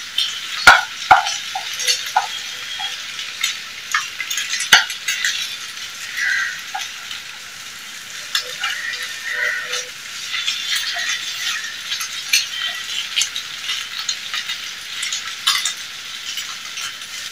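Eggs sizzling in oil in a nonstick pan as a wooden spatula stirs and scrambles them, scraping across the pan with sharp knocks against it now and then, the loudest in the first second and about five seconds in.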